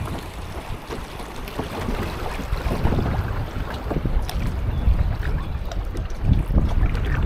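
Water splashing and lapping around a kayak on a river, with many short irregular splashes, under a low rumble of wind on the microphone.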